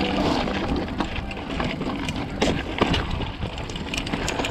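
Mountain bike ridden over a rocky dirt singletrack: tyres crunching over dirt and stones, with the bike rattling in frequent sharp clicks and knocks over a steady rumble of wind on the handlebar camera's microphone.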